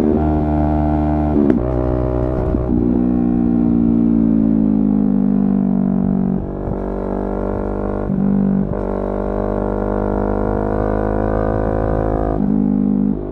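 Yamaha R3's 321 cc parallel-twin engine running under way, a steady drone whose pitch slides down slowly as the bike slows. It breaks briefly about six and eight seconds in, then holds a steady pitch.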